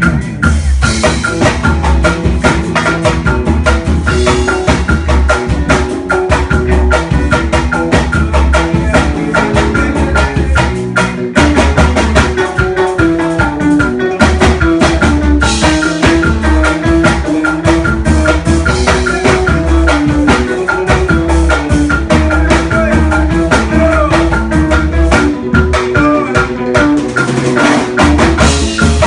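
Band music with a driving drum beat and heavy bass under a melody line moving note by note, with no singing heard; the beat drops out briefly about eleven seconds in.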